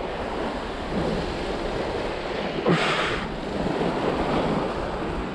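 Surf washing against a rocky shore, with wind buffeting the microphone; a brief louder rush of water about three seconds in.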